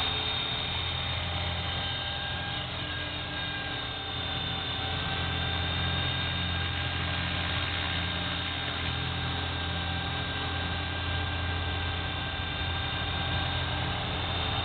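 EXI450 electric radio-controlled helicopter in flight: a steady high whine over a low hum from the spinning rotor, dipping slightly about four seconds in as the throttle eases.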